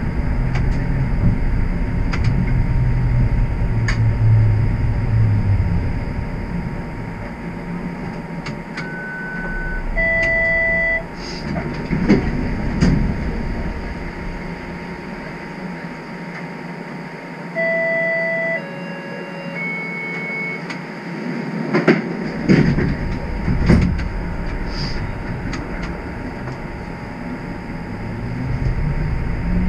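Streetcar cabin sound: the low running rumble of the car on its rails fades as it slows and stands nearly still for several seconds. During the lull, short electronic chime tones sound, a two-note chime twice, then a few falling notes. A few sharp knocks follow, and the rumble builds again with a rising motor whine near the end as the car pulls away.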